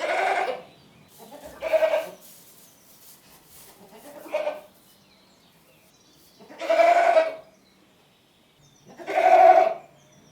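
A goat bleating five times, each call under a second long with pauses of one to two seconds between them. The last two calls are the longest and loudest.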